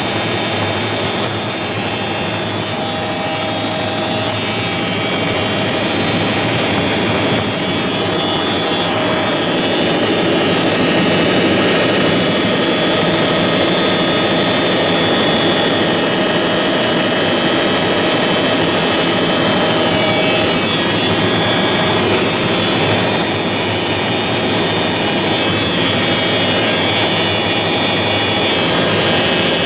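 Helicopter in flight, heard from inside the cabin: steady engine and rotor noise with several constant whining tones.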